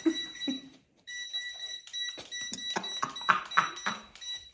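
A steady high-pitched electronic tone from a toy mini quadcopter drone set, breaking off briefly about a second in. A child laughs and calls out over it.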